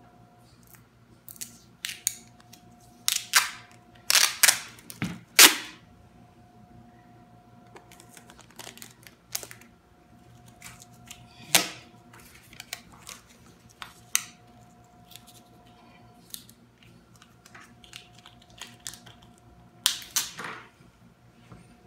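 Clear packing tape being pulled off the roll in short, loud rips: a string of them over the first six seconds, another about halfway through and a pair near the end. The tape is being stretched around the counter edge to hold glued edge banding tight.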